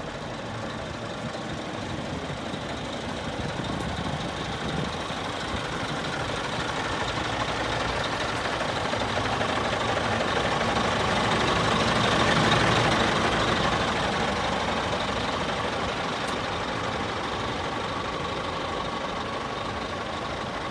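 Scania G440's 13-litre straight-six diesel engine idling steadily, growing louder toward the middle and easing off again.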